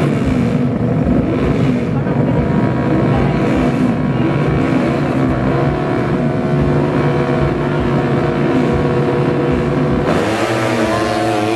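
Two 200cc fuel-injected underbone drag bikes revving hard at the start line, holding their engines at high revs. About ten seconds in they launch, the engine notes sweeping up in pitch as they pull away.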